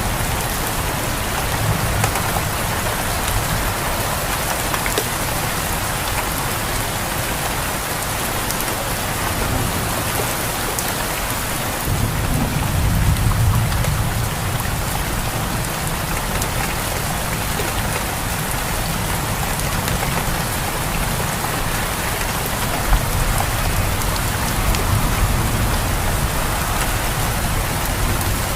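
Steady heavy rain falling, with low rolls of thunder swelling now and then; the loudest roll comes about halfway through.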